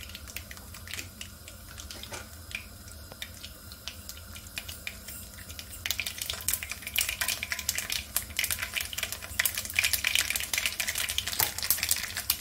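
Mustard seeds frying in hot oil in a pan, being tempered: a light sizzle with scattered pops at first, then about six seconds in a dense crackling as the seeds start to splutter and pop.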